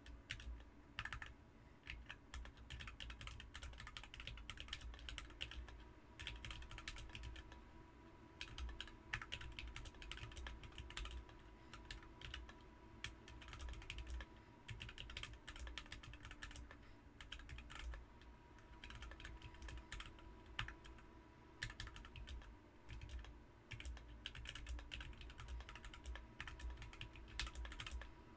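Fast typing on a BM43 40% mechanical keyboard fitted with Ms Piggy switches: rapid runs of keystroke clicks, broken by short pauses every few seconds.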